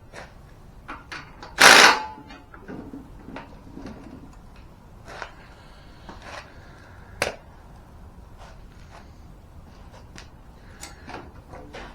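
Hand tools and metal jack parts being handled during assembly: scattered clicks and knocks, with one louder clatter about two seconds in and a sharp click near the middle.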